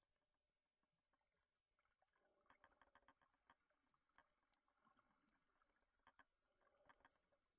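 Near silence underwater, with faint scattered clicks and crackling in two short clusters, one about a third of the way in and one near the end.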